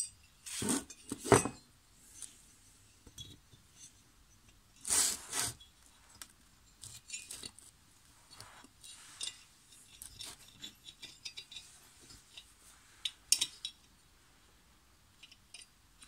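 Small metallic clinks and taps of a cotter pin being worked into the decompressor valve linkage of an aluminium Malossi cylinder head as the head is handled on the bench. There are a few louder knocks in the first second and a half and about five seconds in, then scattered light ticks.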